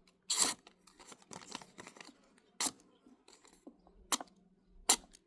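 A few brief, separate handling sounds from a freshly sharpened pocket knife being tested: one short scrape about half a second in, then several sharp clicks spaced a second or so apart.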